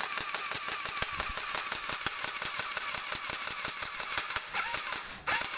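Battery-powered electric airsoft rifle firing on full auto: the motor and gearbox buzz with a rapid stream of BB shots clicking out. One long burst of about five seconds, a short break, then a brief second burst near the end.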